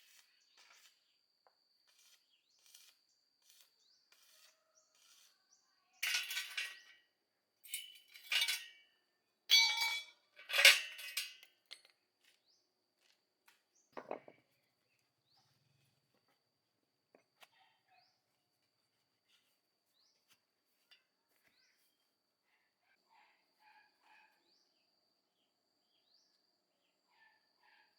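Metal tools and parts clinking and scraping in several short bursts, loudest about six to twelve seconds in, with scattered faint clicks around them. A faint steady high insect-like tone runs behind.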